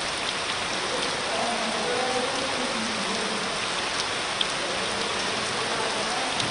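Heavy rain with hail pouring down in a steady hiss, with a few sharp ticks of hailstones striking about four seconds in and again near the end.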